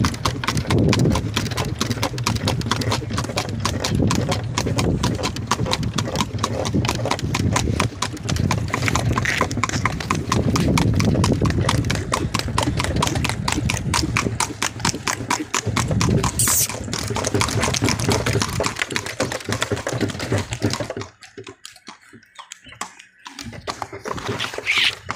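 Horse hooves clip-clopping in a fast, even beat on a hard road surface. The hoofbeats drop away for a couple of seconds near the end, then start again.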